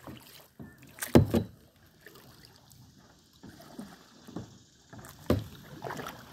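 A few thumps and knocks against a small paddling boat: the loudest pair about a second in, another about five seconds in, and quieter knocks between.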